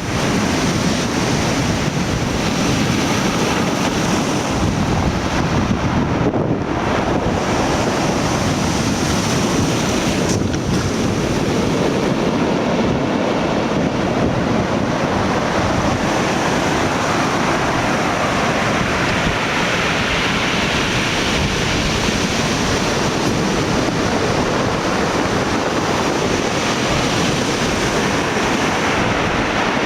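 Ocean surf breaking and washing up a beach in a continuous rush, one wave swelling louder about two-thirds of the way through, with wind buffeting the microphone.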